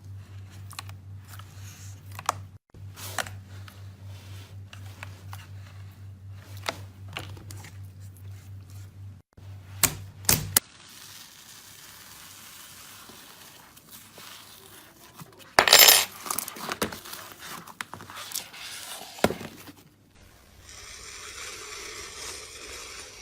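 Slime being squeezed and poked by hand, making a run of small sharp clicks and pops over a steady low hum. After about ten seconds the hum stops and there is softer crackling, with one louder crackling burst around the middle and a steady hiss near the end.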